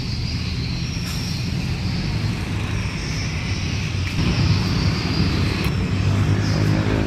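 Steady low rumble with a hiss above it, growing a little louder about four seconds in, with a few faint clicks.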